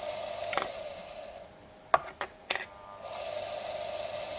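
DSP-250 electric drainage pump running dry with its impeller spinning, a steady whine. It cuts out about a second and a half in, a few sharp clicks follow, and it starts again about three seconds in, switched by its float.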